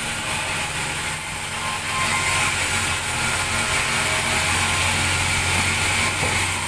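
Sawmill bandsaw running with a steady low hum, getting louder about two seconds in as the blade cuts through a large timber slab.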